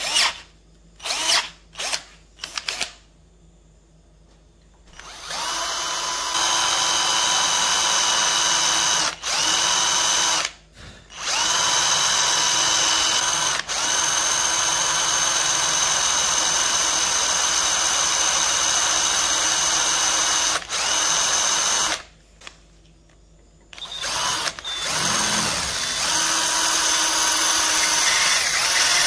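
Electric hand drill: a few quick trigger blips, then long steady runs with a high whine, eased off briefly a few times. It stops for about two seconds near the end, then starts again.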